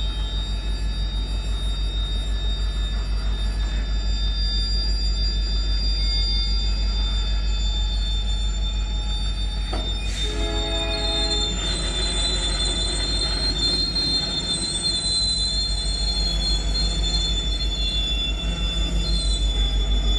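Metre-gauge freight train rolling past, its wagons making a steady rhythmic rumble while the wheels squeal with a high, steady tone. A brief pitched tone sounds about halfway through.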